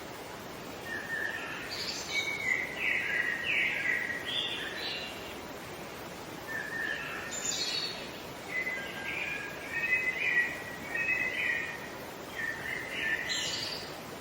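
A songbird singing three phrases of quick chirping notes: one about a second in, a longer one from about six to eleven seconds, and a short one near the end. A steady hiss of background noise runs underneath.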